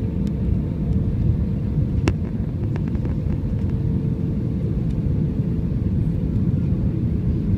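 Cabin noise inside an AirAsia Airbus A320 descending to land: a steady low rumble of engines and airflow with a faint steady hum. A few light clicks, the sharpest about two seconds in.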